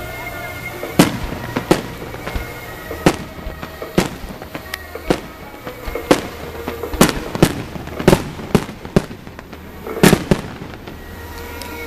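Fireworks display: aerial shells bursting in a rapid, irregular series of sharp bangs, with the loudest about a second in and again near the end.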